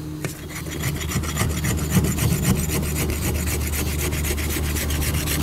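A farrier's rasp scraping the horse's hoof wall in quick, even, repeated strokes, starting about half a second in. The corner of the rasp is scratching grooves into the wall so the glue will anchor.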